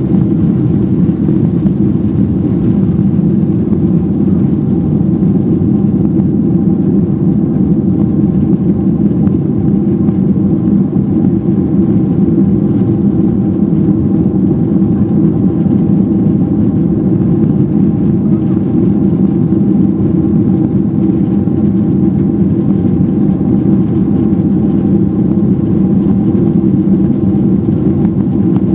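Steady engine and airflow noise inside the cabin of a Boeing 767-400ER, its turbofans at takeoff thrust as the airliner lifts off and climbs out. Loud and unbroken, a deep rumble with a faint steady hum above it.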